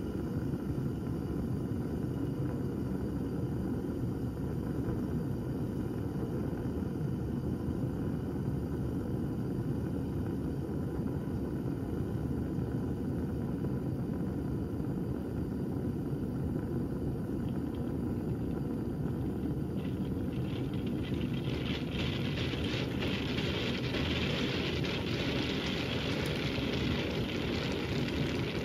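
Water in a stoppered glass flask starting to boil over a steady low noise. About twenty seconds in, a crackling hiss of forming steam bubbles sets in and grows louder: the water in the geyser model is reaching the boil.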